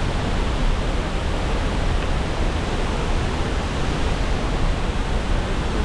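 La Fortuna Waterfall, a large waterfall, falling close by: a steady, loud rush of water, strongest in the low end.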